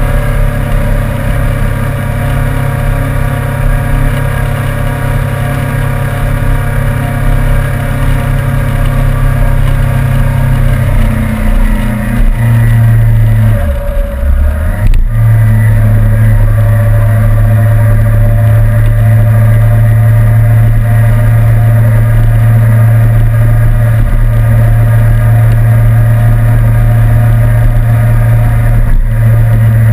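Suzuki GSR750's inline-four engine running steadily under way. About halfway through the engine note dips, there is a click, and it settles at a new steady pitch.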